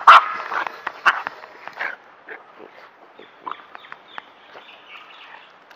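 Dog barking, loudest right at the start with a couple more barks about one and two seconds in, then only quieter scattered clicks.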